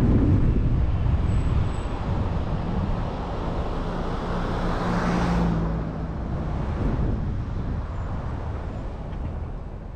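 Car driving along a road: a steady rumble of engine and tyre noise, swelling to a louder rush about five seconds in and then slowly easing off.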